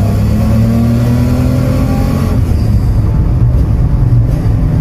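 Chrysler Hemi 6 straight-six engine pulling under acceleration, heard from inside the car's cabin. Its note rises a little, then falls back about halfway through and carries on at a lower pitch.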